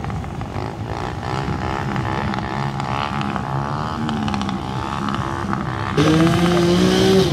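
A motorcycle engine running at low, slowly wavering revs. About six seconds in, a louder, steady droning note cuts in abruptly.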